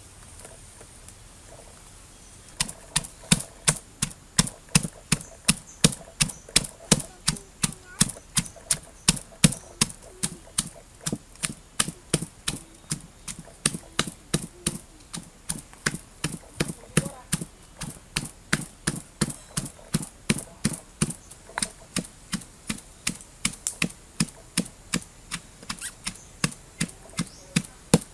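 Pestle pounding chilies in a stone mortar: a steady beat of sharp knocks, roughly five every two seconds, starting a couple of seconds in.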